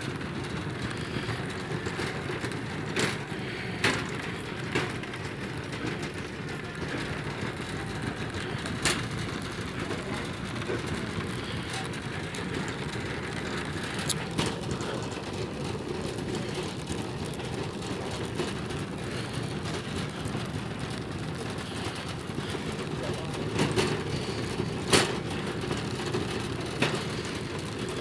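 Steady low rattling rumble of movement across a hard store floor, with scattered sharp clicks and knocks from handling a phone while walking.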